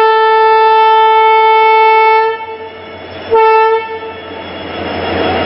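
Locomotive horn sounding one steady tone: a long blast of about two and a half seconds, then a short blast a second later. After it, the locomotive's running noise rises.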